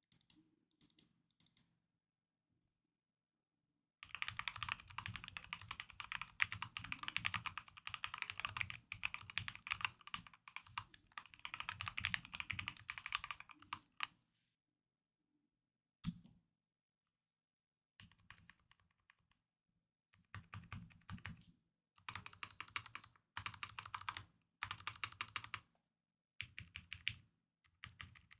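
Typing on an Akko MOD005 aluminium gasket-mounted 65% mechanical keyboard with Akko Jelly Black linear switches and cherry-profile double-shot PBT keycaps, modded for a deep 'thock' sound. A few keystrokes, then about ten seconds of fast continuous typing, a single key strike about sixteen seconds in, and then short bursts of typing separated by brief pauses.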